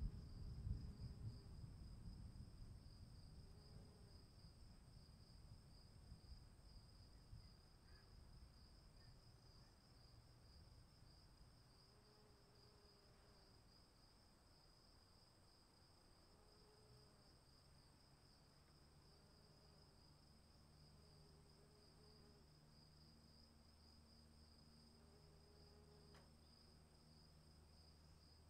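Faint, steady high chirring of crickets, with a low rumble dying away over the first several seconds and a few soft, short low calls scattered through.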